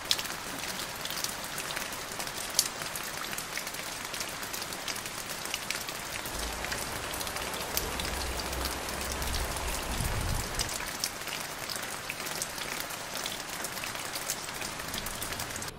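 Steady rain falling on a tiled roof, an even hiss dotted with sharp clicks of single drops striking the roof tiles.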